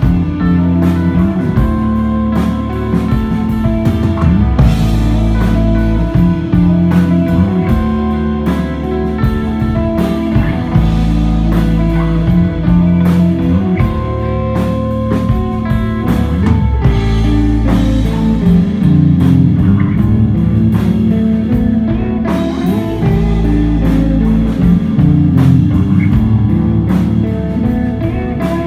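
Live instrumental desert rock played loud: electric guitar over bass and drum kit, a steady groove with sustained guitar notes.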